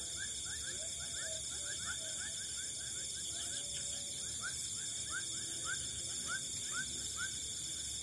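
Night-time chorus of insects chirring steadily and high, with a short falling call repeated a few times a second that slows and grows a little louder in the second half.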